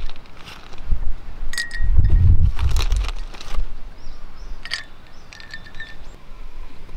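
Ice cubes dropped into a ceramic mug of coffee, clinking against the mug several times, some clinks leaving a short ring. A low rumble comes around two seconds in.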